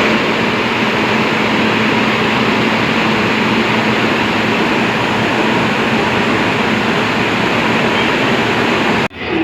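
Indian Railways locomotive standing at a platform and humming steadily: a loud, even rush of noise with a low steady tone under it. It cuts off abruptly near the end.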